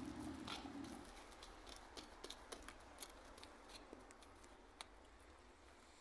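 Faint, scattered small clicks and crackles of fingers pressing soil into a cut plastic bottle around grafted linden scions. A low hum fades out about a second in.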